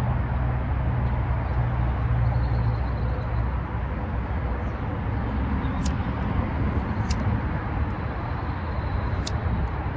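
Wind buffeting the microphone, a steady low rumble, with three short sharp clicks in the second half.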